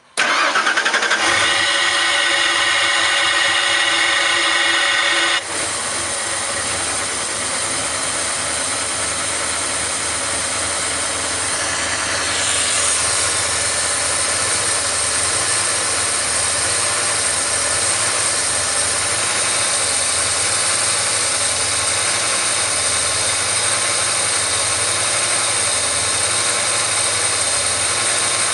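Ford Lightning V8 with aftermarket Cobra camshafts starting up right at the beginning. It runs at a louder, higher idle for about five seconds, drops abruptly to a lower idle and keeps idling. The idle hunts because of a vacuum leak: the fuel pressure regulator's vacuum hose is disconnected from the vacuum tree behind the throttle body.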